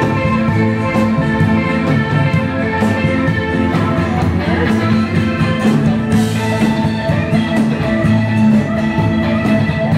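Electric guitar playing in a live rock band, with drums and a steady low bass note underneath.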